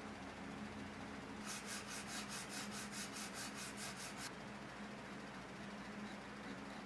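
Rapid back-and-forth rubbing strokes on a small wooden piece, about five a second for roughly three seconds, starting about a second and a half in, over a faint steady hum.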